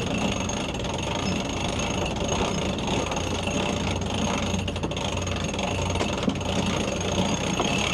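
Najad 380 sailboat's inboard diesel engine running steadily under way, with the working of a winch as the mainsail is hauled in.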